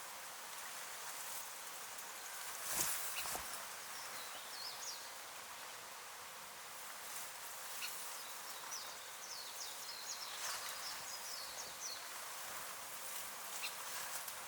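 Outdoor ambience: a steady hiss, with faint high-pitched chirps of small birds in the background and a brief knock about three seconds in.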